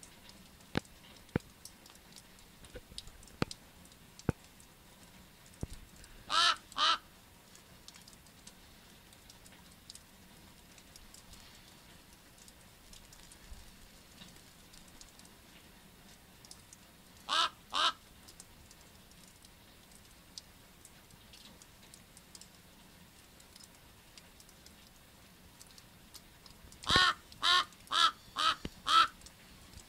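Common raven calling with harsh croaks: a pair about six seconds in, another pair about eleven seconds later, and a quick run of about six near the end. Faint scattered clicks between the calls.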